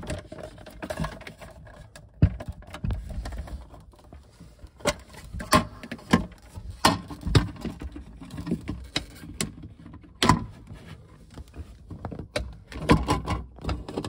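Plastic parts of a refrigerator water filter head and its cover being handled and pushed into place: irregular clicks, knocks and rubbing. A sharp knock comes about two seconds in, with a cluster of louder clicks in the middle and another near the end.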